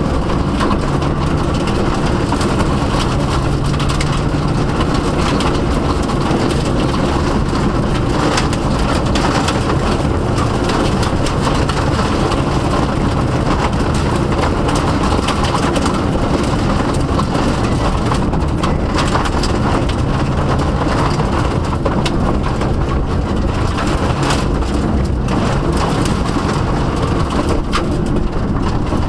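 Inside the cabin of a Subaru Impreza WRX STI rally car at speed: its turbocharged flat-four engine running hard, with gravel and stones hitting the underbody and wheel arches in a steady loud rattle.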